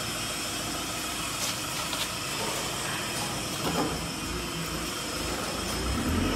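Steady hissing background noise, with low rumbling knocks from the camera being handled and moved in the second half.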